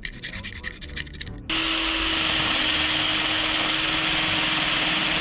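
A metal scraper scrapes old gasket off the aluminium heat exchanger's flange in quick irregular strokes. About one and a half seconds in, a cordless drill with a wire brush starts up with a sudden steady whir and hiss as it scours the gasket faces clean.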